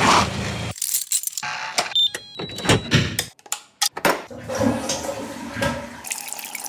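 A quick succession of short, unrelated sound effects: sharp clicks and knocks, brief high electronic beeps, and a short pitched tone.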